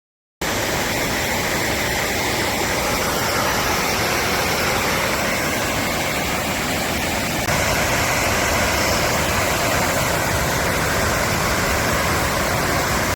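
A river rushing down granite falls: a loud, steady wash of water noise, with a slight step up in level about seven seconds in.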